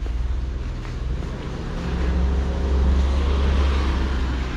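A motor vehicle's engine running low and steady as it passes close by, growing louder to a peak about three seconds in, then easing off.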